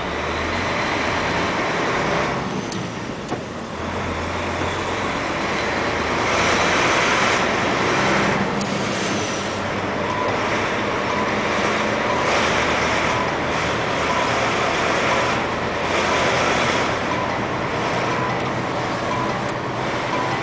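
Road and engine noise from a moving vehicle, with a low engine hum and several swells of louder noise as a line of oncoming trucks passes close by.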